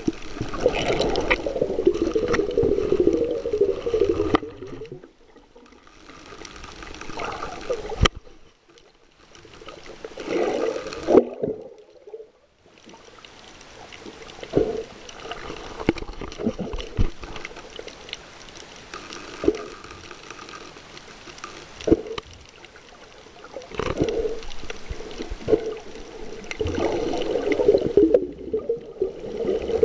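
Water heard by an underwater camera while snorkelling: muffled swishing and bubbling against the housing, louder at the start and near the end, with scattered sharp clicks and two quieter stretches in the first half.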